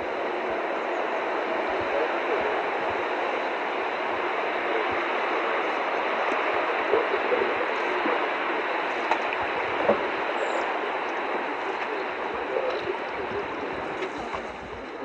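Steady rushing of flowing river water, an even hiss with no pitch, with a few faint clicks.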